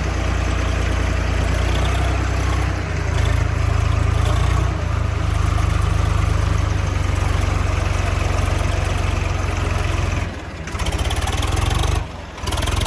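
A heavy construction vehicle's engine running steadily with a deep hum. It dips briefly about ten seconds in and again about twelve seconds in.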